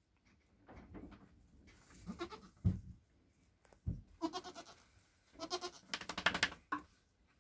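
Nigerian Dwarf goats bleating: several wavering bleats from about two seconds in, the longest near the end. Two dull low thumps come between the first bleats.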